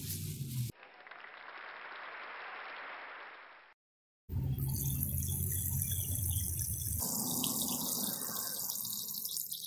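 A soft hiss swells and fades in the first few seconds. Then, over a low rumble, water runs from a rain cistern's brass spigot and splashes onto dry ground.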